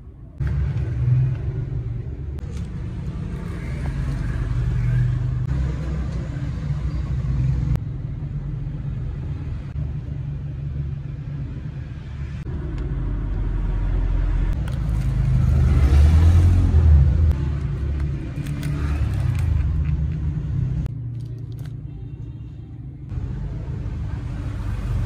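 Low, steady background rumble with a hiss over it, jumping abruptly in level a few times.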